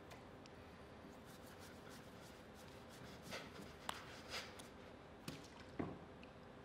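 Mostly quiet, with a few faint, short rubbing sounds from about three seconds in, as wet hands scrub bare skin with water from a plastic tub.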